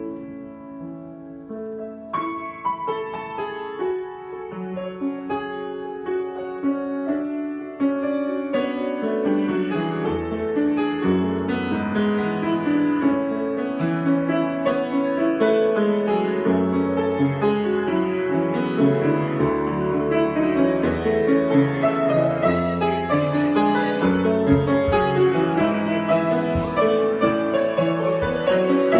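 Improvised piano music that starts soft and sparse, then builds into a fuller, louder passage with low bass notes entering about ten seconds in.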